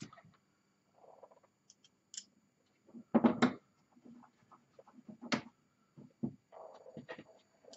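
Intermittent clicks, knocks and scrapes of screws and case parts being handled and fitted as a Roland D-50 synthesizer's chassis is screwed back together. A cluster of louder knocks comes about three seconds in and a single sharp knock past five seconds.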